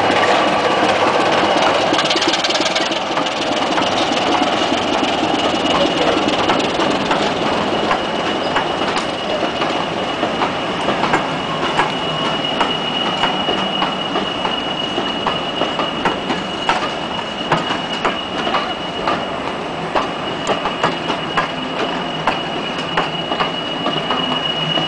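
Class 25 diesel locomotive D7612 drawing past with its engine running, then a rake of passenger coaches rolling by, wheels clicking over the rail joints. A steady high-pitched wheel squeal sets in about halfway through and grows louder toward the end.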